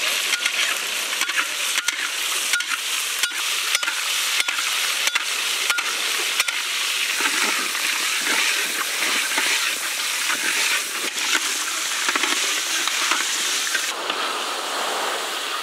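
A whole crab frying in oil and masala in a large iron wok, sizzling steadily. During the first half, a metal spatula taps and scrapes against the pan about once or twice a second as the crab is turned.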